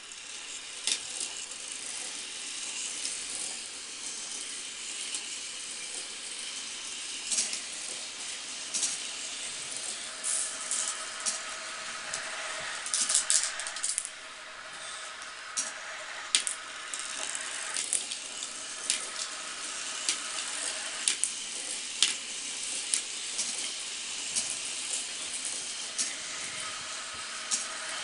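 Glass marbles rattling down a homemade marble run and clicking against one another, sharp clicks scattered throughout, some in quick clusters, over a steady rolling hiss.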